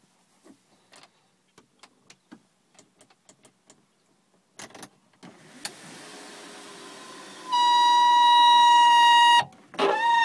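The panoramic sunroof of a 2011 Jetta SportWagen, its motor running as the glass panel moves, after several seconds of faint scattered ticks. About halfway through, a loud steady high-pitched squeal starts over the motor's lower whine. It breaks off briefly near the end and starts again. The roof is one that keeps sticking open.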